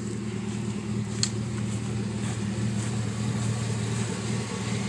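A vehicle engine idling with a steady low hum, with a single short click about a second in.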